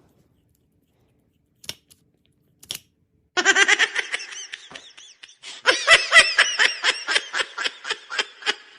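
Two short clicks, then a person bursting into high-pitched laughter about three seconds in, breaking into rapid repeated bursts of laughing.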